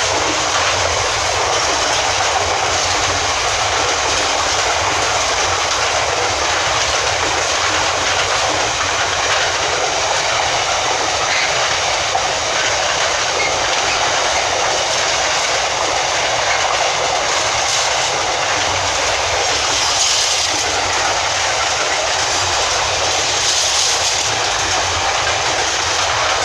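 Freight train hauled by a Freightliner Class 66 diesel locomotive passing, its wagons' wheels making a steady, loud rolling noise on the rails.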